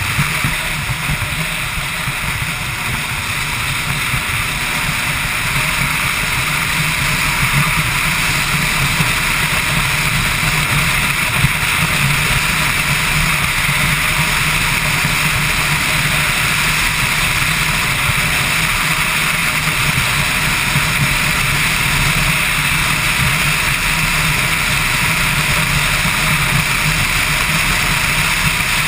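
Motorcycle riding at road speed, heard from a camera mounted on the bike: steady engine drone mixed with wind rushing over the microphone. It grows louder over the first several seconds, then holds steady.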